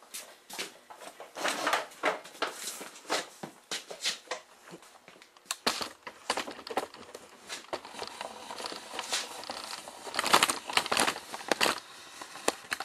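Irregular clattering, knocking and scraping of a small oil-filled direct-drive air compressor being handled and moved into place, with the loudest knocks about ten to twelve seconds in.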